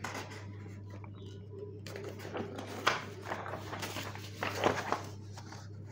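Printed paper sheets rustling as pages are handled and turned, in irregular bursts, the loudest about three seconds and four and a half seconds in, over a steady low hum.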